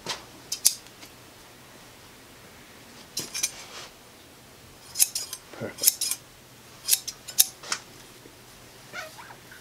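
Large barber scissors snipping hair, with sharp metallic snips coming in short quick runs and pauses between them.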